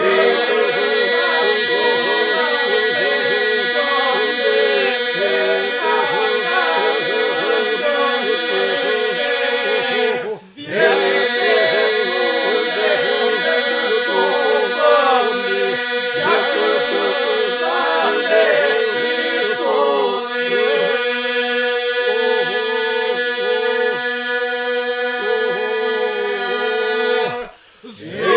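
Labërian iso-polyphony: male voices singing a cappella, a sustained group drone (the iso) held under interweaving solo vocal lines. The singing breaks off briefly for breath about ten seconds in and again just before the end.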